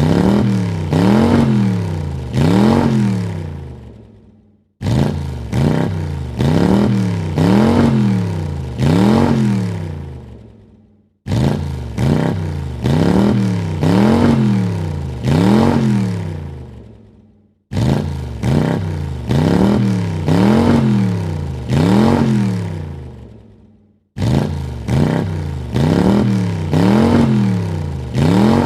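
Car engine revved in several quick throttle blips, the pitch rising and falling with each, then dying away. The same short burst of revving repeats about every six and a half seconds.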